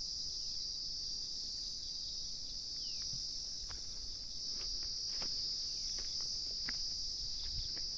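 Steady, unbroken high-pitched shrill of insects, with a few faint ticks scattered through it.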